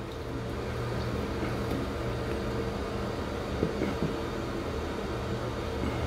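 Steady low mechanical hum, with a few faint clicks around four seconds in as the plastic nut under a toilet tank is turned by hand.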